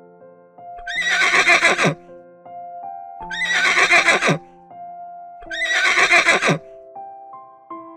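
A horse whinnying three times, about a second each, every call starting with a rising squeal and falling away at the end, over soft piano music.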